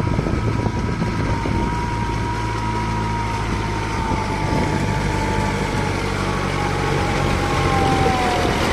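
Kubota MU4501 tractor's four-cylinder diesel engine running steadily as it pulls a puddling harrow through a flooded paddy on cage wheels, a little louder near the end as it draws close. A thin high whine slowly falls in pitch.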